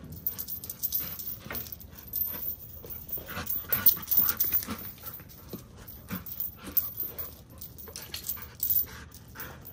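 Dog panting as it chases a flirt-pole lure, with irregular scuffs and thumps of running on the dirt, loudest about four seconds in.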